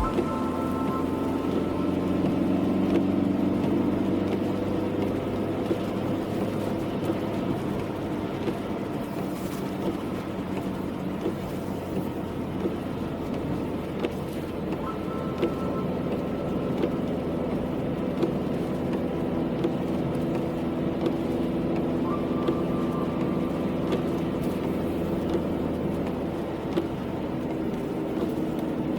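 Car driving: steady engine and road noise, with the engine note drifting slowly up and down in pitch and scattered light ticks.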